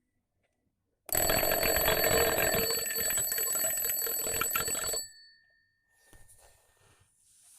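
Alarm clock ringing loudly for about four seconds, starting suddenly about a second in and cutting off abruptly, with a faint tone ringing on briefly after it stops.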